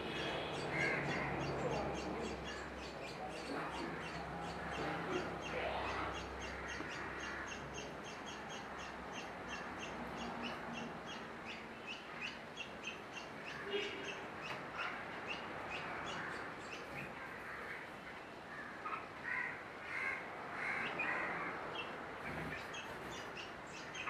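Red-whiskered bulbuls calling: a steady run of short, high notes about four a second, with a cluster of louder, harsher chirps near the end.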